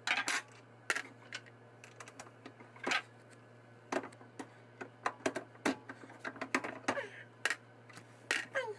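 Quick, irregular metallic clicks and clacks of a Grip 'n Pull bullet puller and reloading press being worked fast, pulling bullets from cartridges one after another.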